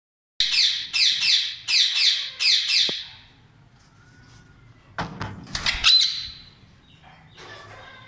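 Caged rose-ringed parakeets calling: a quick run of about seven harsh calls, each falling in pitch, over the first three seconds, then a shorter burst of sharp squawks about five seconds in.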